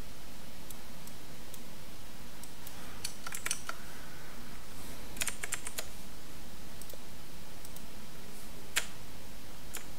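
Computer keyboard and mouse clicks: a few scattered taps, small clusters of quick clicks about three and five seconds in, and one sharper click near the end, over a steady low hiss.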